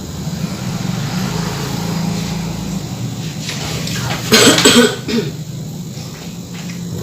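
A person gives a short, loud cough about four seconds in, over a steady low hum.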